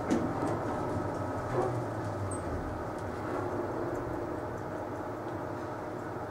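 Elevator car running: a steady low rumble and hum from the moving car, a little stronger about one to three seconds in.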